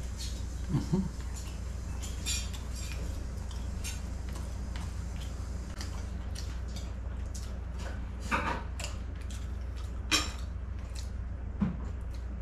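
Soft clicks and taps of a plate and food being handled while eating with the hands, with a few louder knocks about a second in and around eight, ten and nearly twelve seconds in, over a steady low hum.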